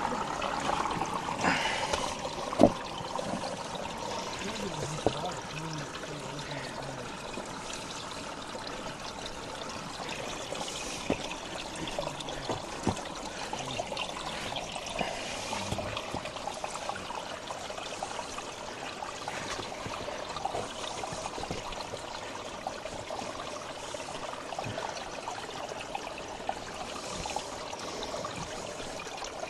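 Water trickling and running steadily, with scattered small clicks and knocks throughout; the sharpest click comes about two and a half seconds in.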